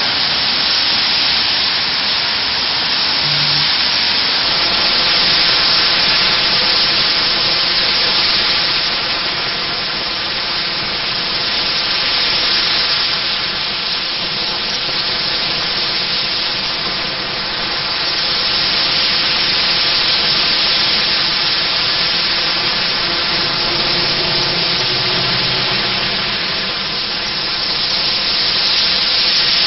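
Road traffic on wet asphalt: a steady hiss of tyres spraying through water and slush, swelling and fading as vehicles pass.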